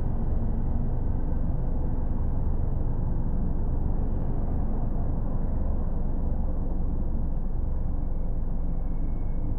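A car driving, with a steady low rumble of road and engine noise that does not change.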